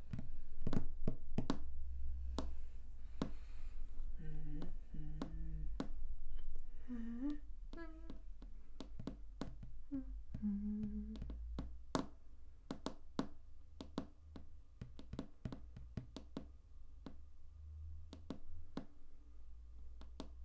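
A person hums a few short notes, one sliding in pitch, over a steady low rumble, with many sharp clicks scattered throughout.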